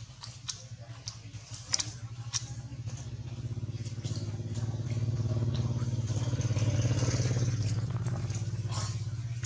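Motorcycle engine running, growing louder to a peak about seven seconds in and then easing off as it passes. A few sharp clicks sound in the first two and a half seconds.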